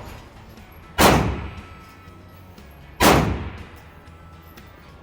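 Two gunshots about two seconds apart, each followed by a fading echo.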